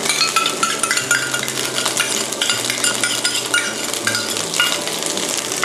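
Garlic fried rice sizzling in a frying pan, with a metal spoon clinking and scraping against a small stainless steel bowl as oyster sauce is spooned into the pan. The clinks come irregularly, many times.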